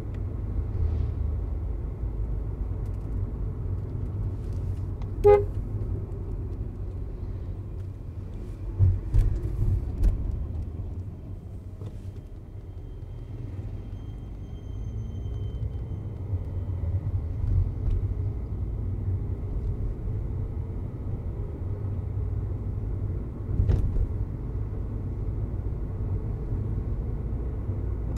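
Steady low rumble of a Volkswagen Vento TSI's engine and tyres, heard from inside the cabin while driving. A short horn beep comes about five seconds in, and a few sharp knocks come around nine to ten seconds in and again near the end.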